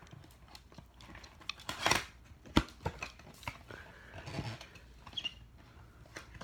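A mystery box being opened by hand: scattered clicks, snaps and rustles of the packaging, with one sharper snap about two and a half seconds in.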